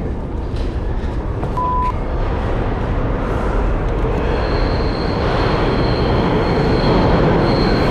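Subway train running through the tunnel, a loud rumble growing steadily louder, with a high steady wheel squeal coming in about halfway. A short beep sounds about a second and a half in.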